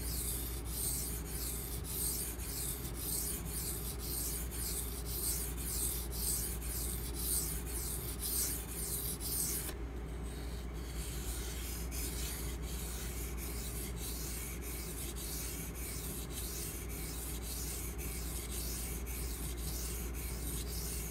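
Steel knife blade (154CM) being stroked back and forth on a Pride Abrasives 1000-grit water stone: a rhythmic wet scraping at about two strokes a second. The strokes pause briefly about ten seconds in, then carry on fainter.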